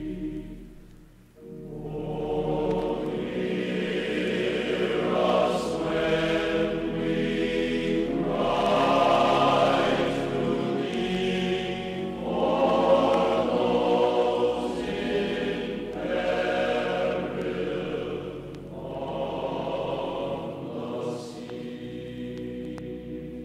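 Background choral music: a choir singing slow, sustained phrases that swell and fade, with a brief drop-off about a second in.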